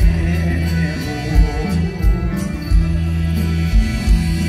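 Live band music from a stage show, with a steady beat of low drum thumps under a sustained bass line.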